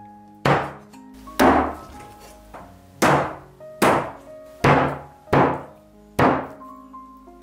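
A cleaver chopping raw duck, meat and bone, on a thick wooden chopping block: seven heavy chops at an uneven pace, roughly one a second. Background music plays under the chops.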